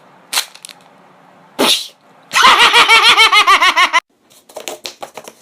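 Vocal sound-effect imitation by a man: a couple of short sharp bursts, then a long rapidly warbling pitched sound that cuts off suddenly, followed by a run of quick mouth clicks.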